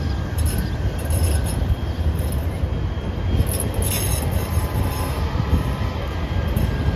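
Kinkisharyo P3010 light-rail train rolling past on a curve, with a steady low rumble from its wheels and running gear and a faint, thin wheel squeal from the curved track.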